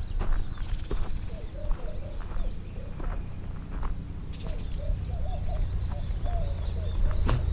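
Footsteps of someone walking, with birds calling in the background and a steady low rumble on the microphone. A sharp knock sounds near the end.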